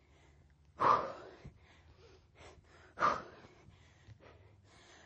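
A woman's hard breaths out with the effort of lifting a dumbbell, twice, about two seconds apart.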